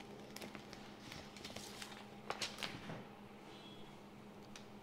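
Light rustling and scattered clicks of a plastic polariser film being handled and its backing liner peeled, with a cluster of louder crinkles about halfway through, over a faint steady hum.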